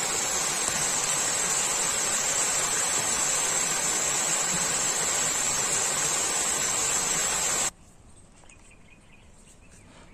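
A steady, loud hiss with a bright high-pitched edge, cutting off suddenly about three-quarters of the way through and leaving only a faint background with light clicks.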